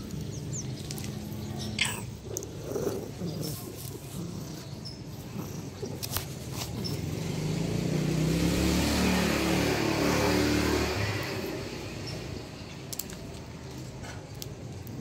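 A motor vehicle's engine passes by, swelling to its loudest about halfway through and then fading, over steady street noise, with a few sharp clicks.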